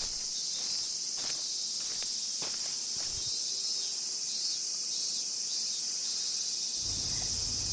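Steady cicada chorus, a high continuous buzzing drone, with a few soft footsteps in the first three seconds.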